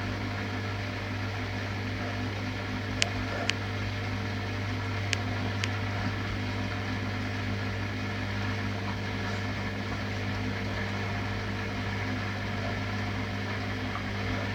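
A steady low mechanical hum, like a household appliance or fan running. Two pairs of short sharp clicks sound over it, about three seconds in and again about five seconds in.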